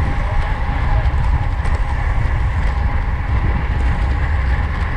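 Steady wind rumble on the microphone of a camera riding on a racing bicycle at speed, with a faint steady whine above it.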